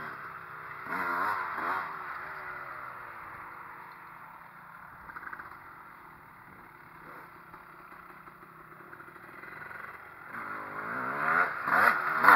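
Dirt bike engines revving and easing off as the bikes ride around, their pitch rising and falling, with one loud burst about a second in. Near the end a full-size Honda CR250 two-stroke gets much louder as it rides up close.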